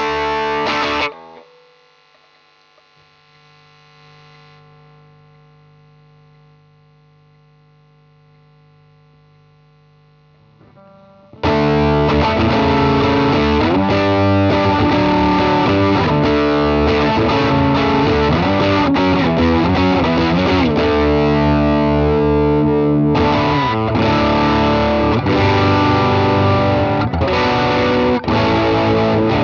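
SQOE JM300 electric guitar on its P90 bridge pickup, played through a DigiTech Bad Monkey overdrive pedal, giving a distorted tone. The playing stops about a second in and leaves a faint fading ring and hum for about ten seconds, then starts again loud and keeps going.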